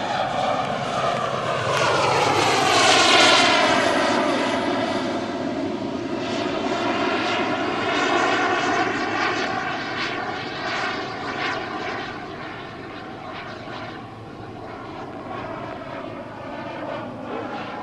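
JetCat P-220RXi turbine of a Fiat G91 scale model jet in flight: a whine and rush that falls in pitch as the jet passes, loudest about three seconds in, then carries on more quietly with slow swells as it flies on.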